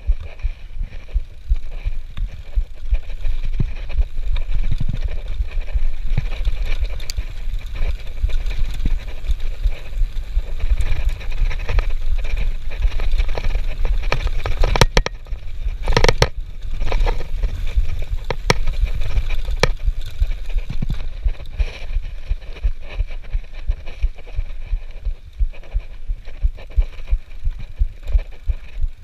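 Mountain bike riding over a grassy dirt trail: a steady low rumble of wind and tyres on the microphone, with the bike rattling over the bumps and a few sharp knocks about fifteen and sixteen seconds in.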